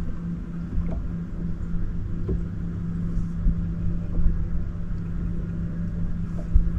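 Steady electric hum of a bow-mounted trolling motor running at one even pitch, over an irregular low rumble of wind on the microphone.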